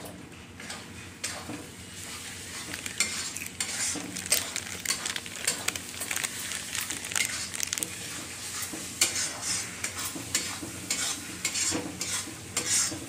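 Masala with chopped coriander leaves sizzling as it stir-fries in a steel kadai, a spatula scraping and stirring against the pan in quick irregular strokes.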